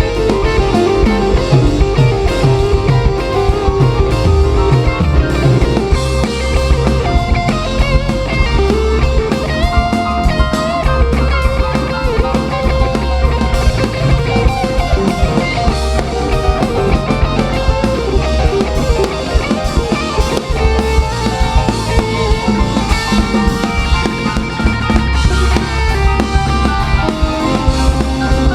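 Live rock band playing an instrumental passage, electric guitar lines over a drum kit.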